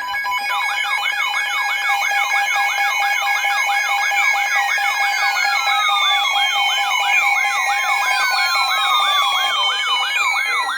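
Electronic emergency-alert siren: steady alarm tones under a fast warbling siren that sweeps up and down about three times a second, with a slow falling tone layered in about every three seconds.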